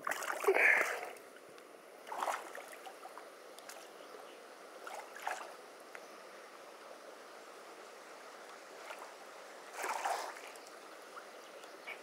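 Shallow stony river running steadily, with a few short splashes of people wading in it; the loudest splash comes about half a second in.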